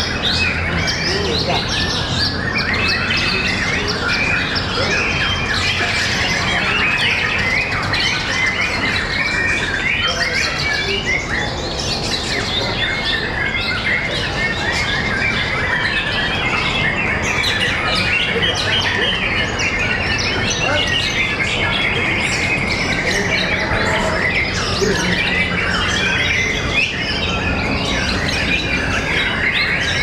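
White-rumped shamas (murai batu) singing in a dense, unbroken stream of rapid chirps and whistles, as at a shama singing contest.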